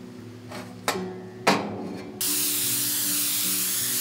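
A spray gun begins spraying activator over hydrographic film floating on the dip tank's water. It starts suddenly about two seconds in as a steady loud hiss, after two sharp knocks.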